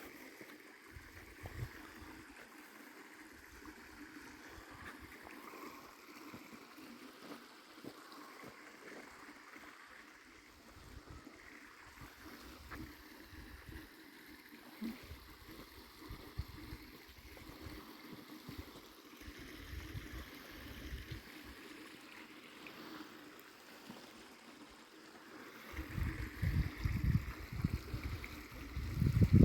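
Steady outdoor rushing noise, with wind buffeting the microphone in gusts that grow strong in the last few seconds.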